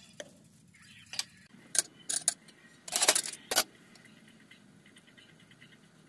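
Sharp knocks and metallic clinks of food preparation, a cleaver on a wooden chopping block and metal spoons, loudest around the middle. After that comes faint, quick scraping as a spoon hollows out chunks of green gourd.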